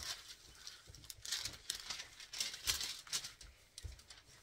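Clear plastic protective film being peeled back and lifted off an adhesive diamond-painting canvas, crinkling in short irregular bursts.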